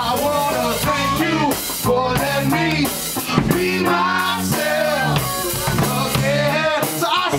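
Live band playing amplified through a PA: drum kit, electric bass and guitar, with a vocalist on microphone over the beat.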